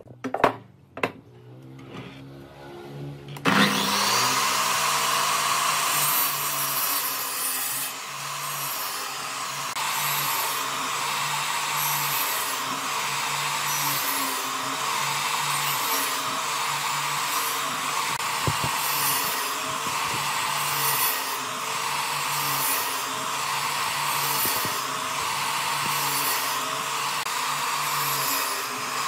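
A couple of knocks, then about three and a half seconds in a sliding miter saw starts. It runs loudly and steadily while its blade is brought down again and again into a pine board to cut a notch, the sound swelling about once a second with each pass.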